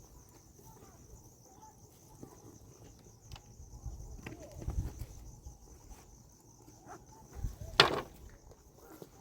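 Steady high insect chirring throughout, with scattered low knocks and shuffling, and one sharp knock just before the end as the loudest sound.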